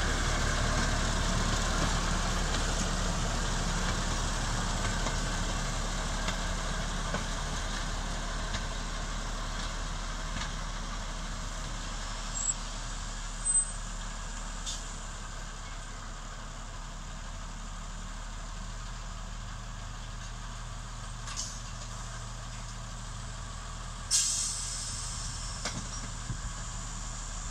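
Mk48 narrow-gauge diesel locomotive's engine running as it moves away, fading over several seconds to a steady distant idle. A few brief sharp noises break in, the loudest near the end.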